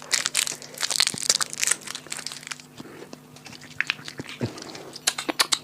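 Crunching and crackling of a strawberry candy being eaten: irregular sharp cracks, dense at first, sparse in the middle, then dense again near the end.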